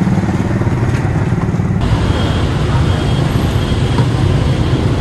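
Motorbike engine running while riding, then, after an abrupt cut about two seconds in, the steady din of many idling motorbikes and cars in a crowded traffic queue, with faint short high tones here and there.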